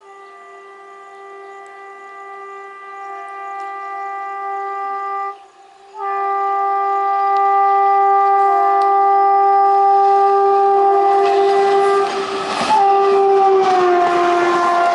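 Indian Railways WAP-4 electric locomotive's horn sounding a chord in two long blasts as the express approaches at speed, the first lasting about five seconds, the second held on and growing louder. About eleven seconds in, the noise of the passing train joins, and near the end the horn's pitch drops as the locomotive goes by.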